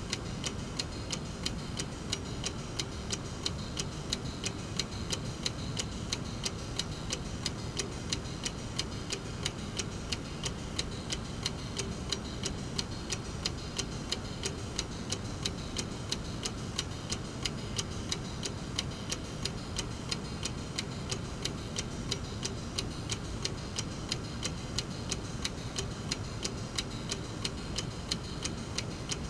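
Brass mechanical clock movement ticking steadily as its escapement releases, with even, rapid ticks several times a second.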